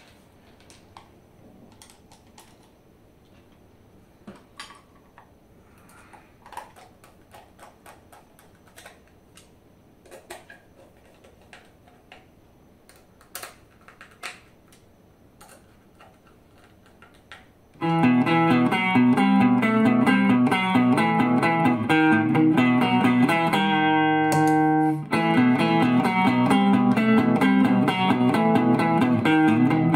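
Small clicks and taps of parts and tools being handled on a workbench, then, from about two-thirds of the way in, an electric guitar played loud and distorted through a DIY effects pedal and a small Marshall Class 5 valve combo amp, with one chord held for a moment partway through.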